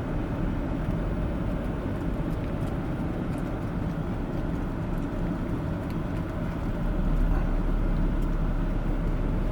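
A car running steadily, with engine and road noise, a little louder from about seven seconds in.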